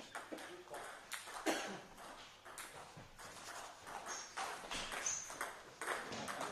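Table tennis balls clicking off bats and tables in irregular rallies from several tables at once, ringing in a large sports hall.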